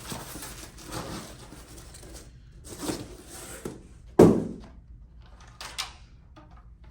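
Handling noise on a workbench: rustling in two stretches, then one sharp thump about four seconds in as something is set down, followed by a few light clicks.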